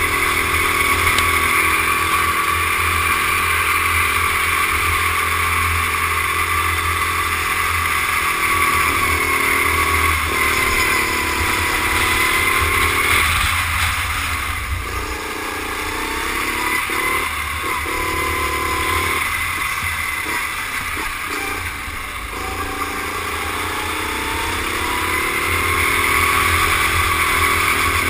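Rental go-kart engine heard onboard through a helmet camera, running hard at high revs. About halfway through the pitch drops and the sound eases off as the kart slows for a tight corner, then it rises again as the kart accelerates out.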